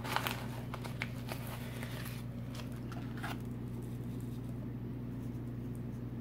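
A steady low hum, with a few faint soft ticks and rustles in the first half, from graham cracker crumbs being rubbed between fingers and sprinkled over the pudding cups.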